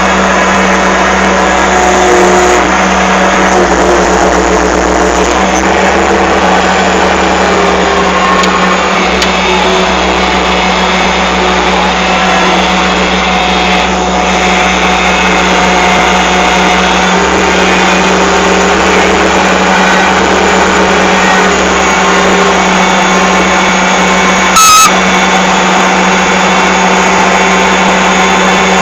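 Excavator's diesel engine running steadily, with one short sharp click late on.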